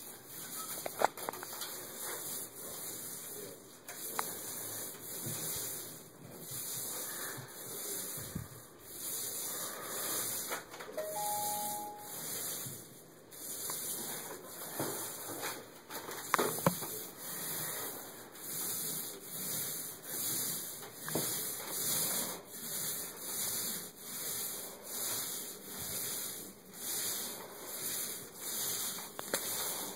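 Paint roller on an extension pole being rolled up and down a wall, a rhythmic sticky hiss that swells with each stroke, about one stroke a second.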